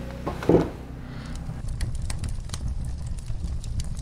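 Wood fire crackling, with sharp irregular pops coming thick and fast, after a brief louder sound near the start.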